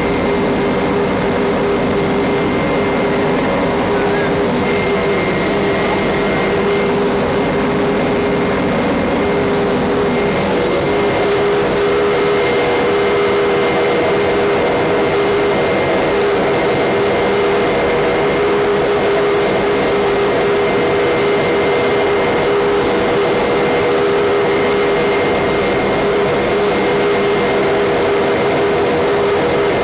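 Helicopter engine and rotors running steadily in cruise flight, heard from inside the cabin: a loud, even drone with a constant high whine over it.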